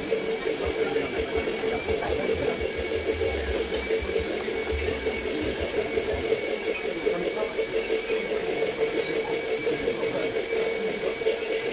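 Steady mechanical hum with a thin high whine above it, unchanging throughout, with occasional dull low thuds.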